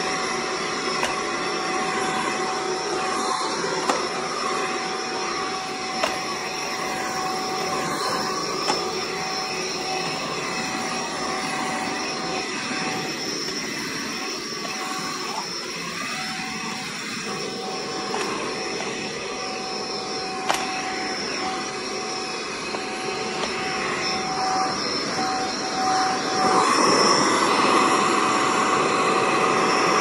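Vacuum cleaner running steadily with a constant whine, its floor nozzle drawn over a hard laminate floor, with a few light clicks along the way. The sound grows louder near the end.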